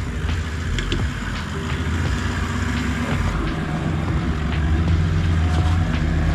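Toyota LandCruiser 70 Series 4WD engine labouring at low revs while crawling up a rocky off-road track, growing louder over the last few seconds. Scattered knocks and clicks from tyres and chassis on rock.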